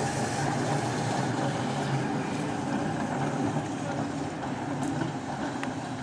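Heritage tram running along its track, a steady noise with a low hum that eases off slightly near the end.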